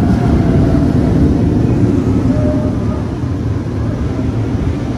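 Steel roller coaster train running along its track: a steady low rumble that eases a little about three seconds in.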